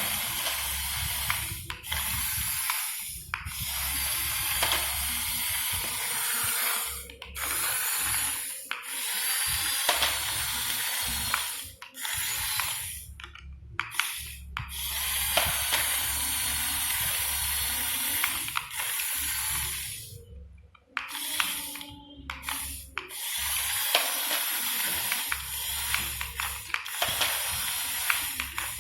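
Electric motors and gearing of radio-controlled excavator and truck models running in stop-start spurts of one to a few seconds: a high hissing whir with scattered clicks, cutting out briefly between moves.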